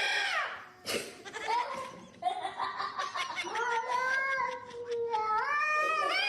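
A cat yowling in long, wavering, drawn-out calls, with a sharp click about a second in.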